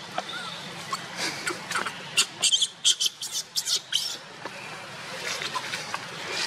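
Baby long-tailed macaque giving short, high squeaks, coming in a quick run of many about two to four seconds in.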